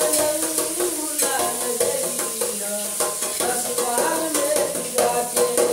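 A man singing a Bhojpuri song in a high, strained voice while slapping out a quick rhythm with both hands on the lid of a metal container used as a drum, each strike giving a bright, tinny slap.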